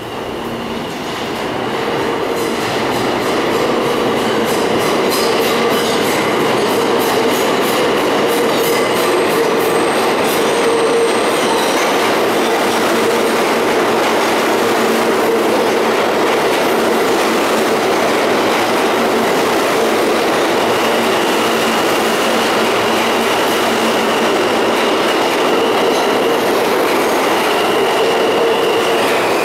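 R160 subway train pulling into an underground station and running along the platform. It rumbles steadily, and its wheels clack rhythmically over the rail joints for the first ten seconds or so. A high, steady squeal comes in about two-thirds of the way through.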